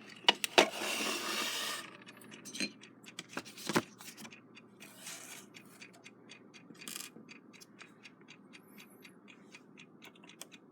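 Small metal clicks and scraping as tools and clock parts are handled, then, from about halfway through, the rebuilt Westclox Big Ben Chime Alarm movement ticking steadily and faintly.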